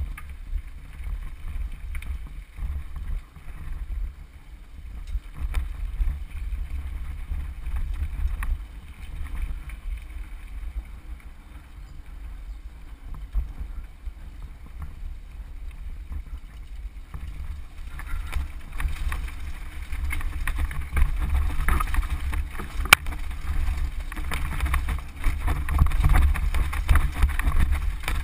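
Mountain bike rolling fast down a dirt trail: wind rumbling on the microphone with the rattle of tyres and frame over dirt and stones. The rattle grows louder and rougher about two-thirds of the way through as the trail turns rocky, with one sharp knock.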